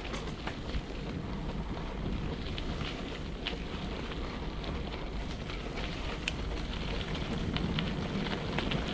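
Wind buffeting the microphone on a moving bike, a steady low rumble, with scattered sharp clicks and ticks throughout.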